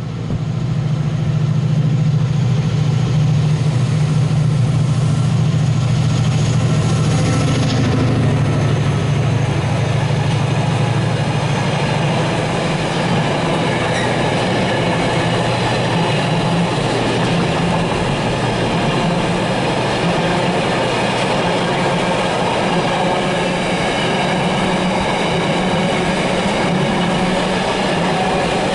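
A DRS Class 68 diesel locomotive's Caterpillar V16 engine running hard as the locomotive passes at speed, its low drone strongest for roughly the first ten seconds. Then a long intermodal train of loaded container wagons rolls past with a steady rumble of wheels on rail.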